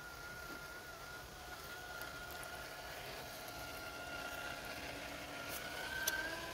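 Radio-controlled Traxxas TRX-4 crawler's electric motor and gear drivetrain whining steadily, the whine rising slightly in pitch near the end as it speeds up.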